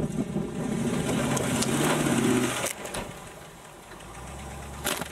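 Classic Range Rover's engine working hard as the car climbs out of a muddy gully, then dropping away suddenly about halfway through to quieter, low steady running. A sharp click near the end.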